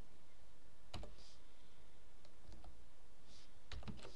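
A few scattered computer keyboard keystrokes, sharp single clicks with gaps between them, the loudest about a second in and a quick pair near the end, as text is edited.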